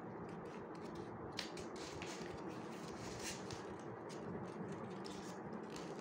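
Faint rustling and crinkling of origami paper being folded and creased by hand, with a few soft clicks of the paper against the table over a steady background hiss.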